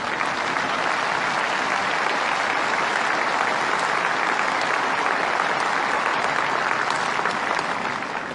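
Large crowd applauding: dense, steady clapping that swells in at the start and begins to die away near the end.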